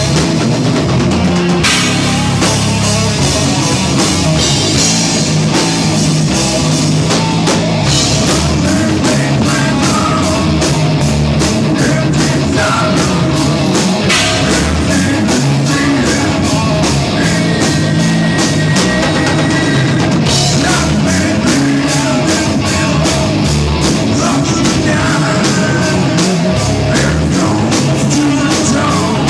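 Loud rock music, hard and driving, with a drum kit beating steadily throughout.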